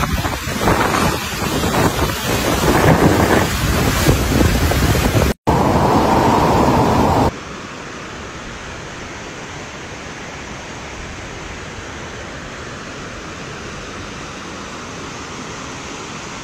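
Rushing muddy floodwater, loud and rough, with wind buffeting the microphone. About seven seconds in it cuts abruptly to a quieter, steady rush of flowing water.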